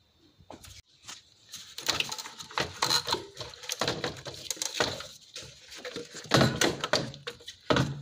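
Intake manifold being worked loose and lifted off the engine by hand: a run of irregular knocks, clicks and clatter of parts being handled, loudest a little past six seconds in.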